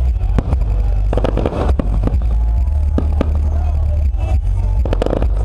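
Aerial fireworks going off: a continuous deep rumble of booms with several sharp bangs and bursts of crackle scattered through.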